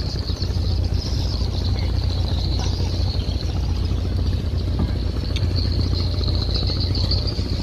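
Boat engine running steadily: a continuous low rumble with a steady high hiss above it.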